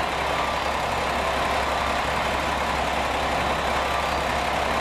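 Diesel engines of a JR Shikoku 2000 series railcar running steadily as it pulls slowly into the platform, a low, even hum with no rise or fall.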